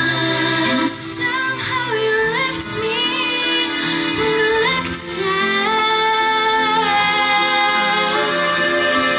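Female solo voice singing a slow pop ballad in English, holding long notes with vibrato over sustained instrumental accompaniment.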